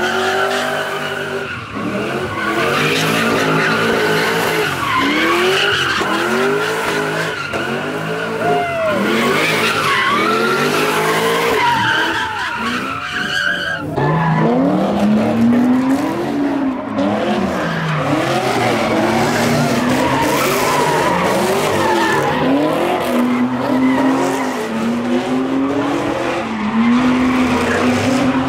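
Cars doing donuts and burnouts: engines revving up and down over and over, with tyres squealing and skidding on the pavement.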